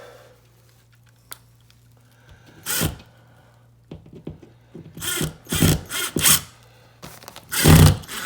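Power drill driving drywall screws into a new drywall patch: a series of short separate bursts and knocks, the loudest one near the end.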